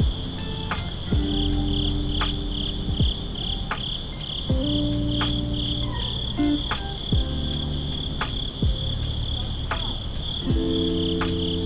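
Crickets chirping steadily in an even pulse, about two to three chirps a second. Under them plays lo-fi background music with soft sustained chords and a light beat.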